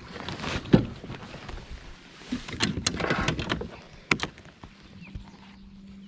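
Scattered knocks and clatters of handling gear on a kayak, a cluster of them in the middle and a sharp knock about four seconds in, followed by a faint steady hum.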